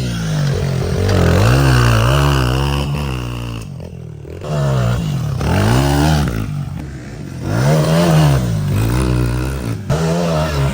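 Small motorcycle engine being ridden hard, its pitch rising and falling over and over as the throttle is opened and closed, with brief drops in level twice.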